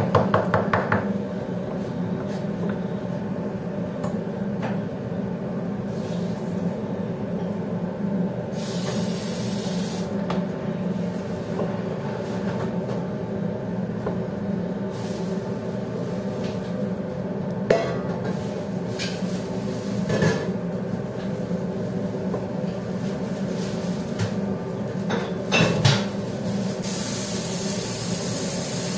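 A kitchen knife chopping quickly on a plastic cutting board for about the first second, then a steady machine hum with scattered knife taps and clatter on the board. There are two short spells of hiss, one about nine seconds in and one near the end, and a few sharper knocks.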